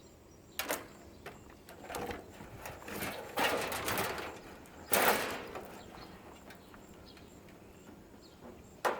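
Wire cutters snipping and wires being pulled from an air purifier's insides: scattered sharp clicks and scraping rustles, the loudest burst about five seconds in.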